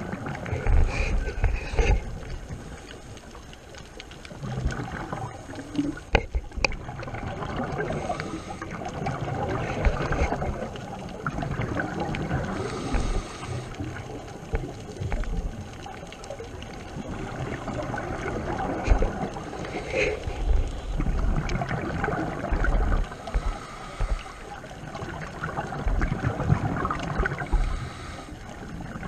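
Scuba diver's regulator breathing heard underwater through a camera housing: irregular gurgling rushes of exhaled bubbles every few seconds, with quieter stretches in between.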